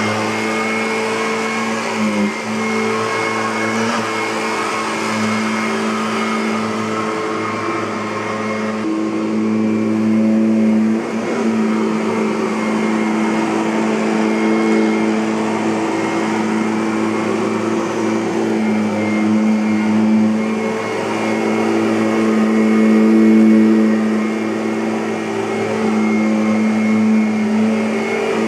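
Kirby Avalir (G10D) upright vacuum cleaner running with a steady motor hum over a rush of air, its pitch shifting slightly now and then.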